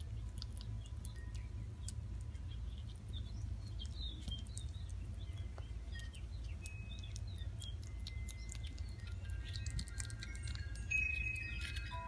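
A young squirrel chewing a sticky piece of date close to the microphone, making small wet clicks, with birds chirping in the background over a steady low rumble. From about three quarters of the way in, chime tones of several pitches ring out one after another.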